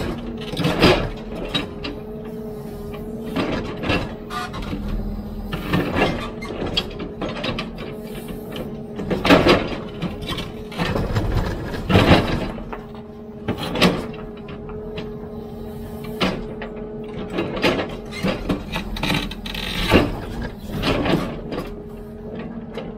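Hidromek 102B backhoe loader's diesel engine running steadily, with irregular metallic clanks and knocks from the digging gear working.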